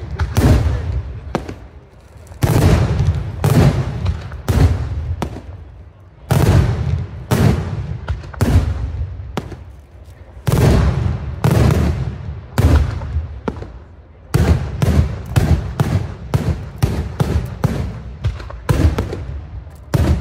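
Daytime aerial fireworks shells bursting in loud, sharp bangs, coming in clusters with short lulls between them and quickening to a rapid run of bangs, two or three a second, over the last third.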